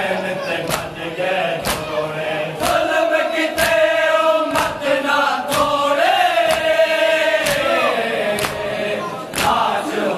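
Shia mourners chanting a noha together, with matam: sharp hand strikes on their chests in time, about one a second.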